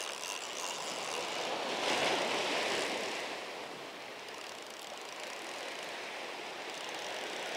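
Steady rush of surf breaking along the shore, swelling briefly about two seconds in.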